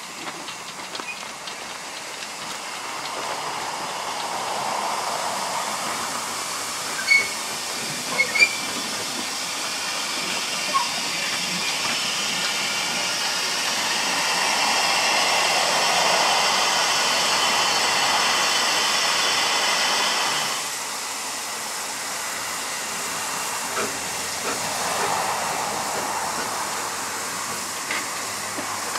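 Zillertalbahn narrow-gauge steam tank locomotive 'Zillertal' moving slowly with its safety valves blowing off: a steady, high steam hiss that builds and then stops abruptly about two-thirds of the way through. A few sharp knocks come about a quarter of the way in.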